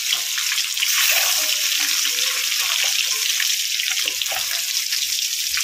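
Boiled eggs coated in turmeric, salt and chilli powder frying in hot mustard oil in a kadai: a steady sizzling hiss with light crackling.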